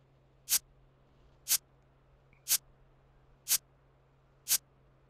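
Ticking sound effect of a quiz countdown timer: five short, sharp ticks, one each second.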